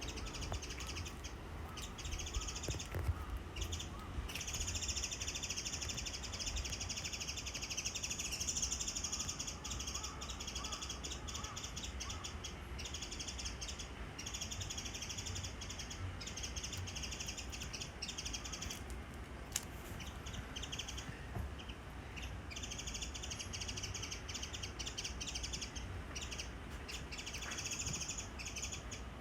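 Small birds calling, high chirping and twittering in long stretches of several seconds with short pauses between, along with some harsher calls.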